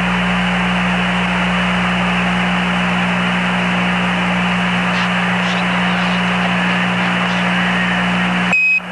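Steady radio static hiss over a low hum on the Apollo 11 air-to-ground voice loop, with the channel open and nobody talking. Near the end the hiss cuts off and a short high beep sounds, a Quindar tone keying the next transmission.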